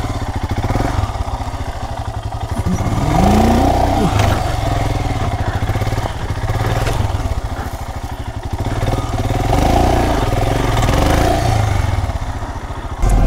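Royal Enfield Himalayan's 411 cc single-cylinder engine running as the motorcycle is ridden, its note rising and falling a few times with the throttle.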